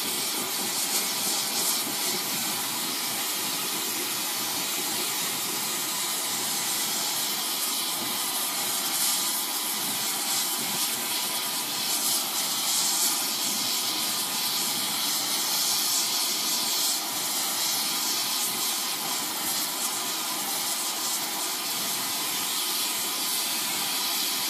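Oxyacetylene torch flame hissing steadily while it heats the edge of a large Damascus steel blade for differential edge hardening.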